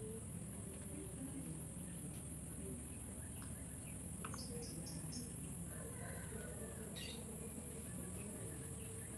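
Steady high-pitched drone of insects, with a few short bird chirps over it, including a quick run of about four chirps near the middle.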